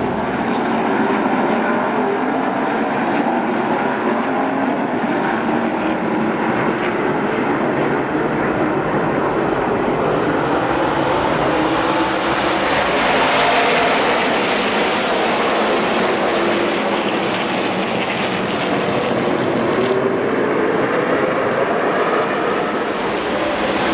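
Field of NASCAR race trucks running at speed, a dense blend of many V8 engines with pitches sliding up and down as they brake and accelerate. The sound swells to its loudest about halfway through as the pack passes closest, then eases back.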